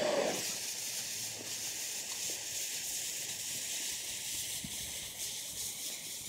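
Fuse of a 2.9-inch Coehorn mortar burning with a steady hiss; the charge has not yet fired.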